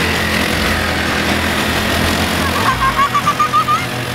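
Small pull-start petrol engines of mini pocket-bike motorcycles running under throttle with a steady buzzing drone. For about a second past the midpoint, a child laughs in rapid high bursts over it.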